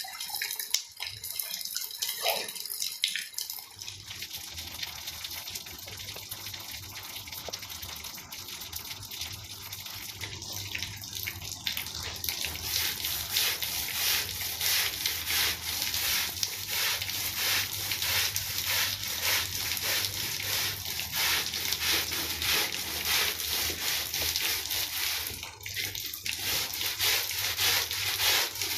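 Wet rug being washed, with water running and splashing over it. From about twelve seconds in come rhythmic strokes, roughly three a second, as the wet pile is scrubbed or scraped.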